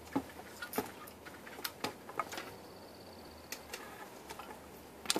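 Scattered light knocks and clicks, about half a dozen of them, of wooden boards being handled and shifted.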